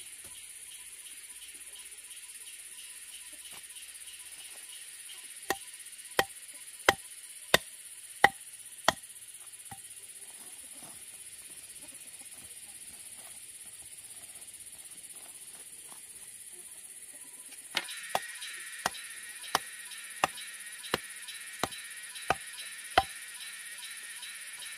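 Two runs of sharp, evenly spaced chopping strokes, about one every 0.7 s: six strokes, a pause, then about nine more. A steady high insect drone runs underneath and grows fuller when the second run begins.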